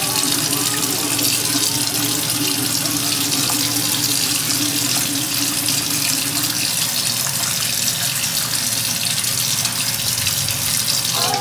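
Bathroom sink faucet running steadily, a stream of water pouring into the basin.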